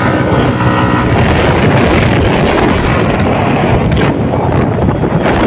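Wind buffeting the microphone over the steady running engine of a motorcycle moving at road speed.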